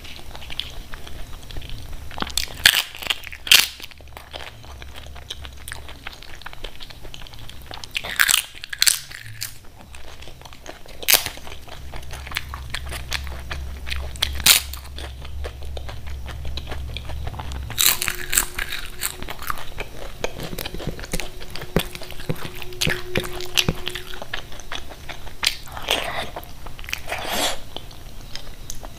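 Close-miked eating sounds: sharp crunching bites into crisp papad, a dozen or so at irregular intervals, with chewing in between.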